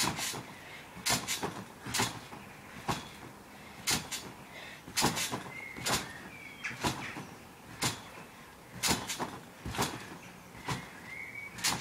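Garden trampoline being bounced on: a thump and spring clunk at each landing, about once a second, with an occasional short high squeak.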